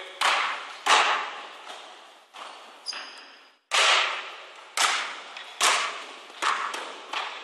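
Basketball dribbled on a wooden gym floor: a sharp bounce about once a second, each ringing on in the echoing hall. A brief shoe squeak on the floor about three seconds in.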